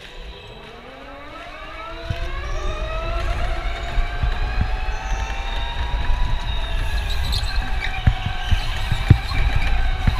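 Electric go-kart's motor whining, rising in pitch as the kart accelerates over the first few seconds and then holding high, over a loud low rumble with occasional knocks.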